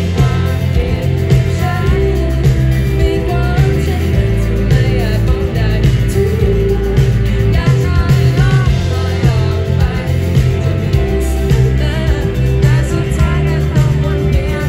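A live band plays a rock song through a PA system, with a singer's voice carrying the melody over electric guitars and drums.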